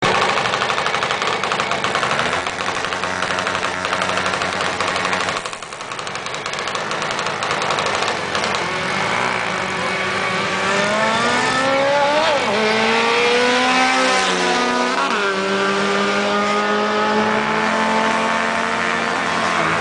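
Car engines at full throttle on a drag strip, loud and steady at first. In the second half one engine's pitch climbs through the gears, dropping sharply at two gear changes, then holds high.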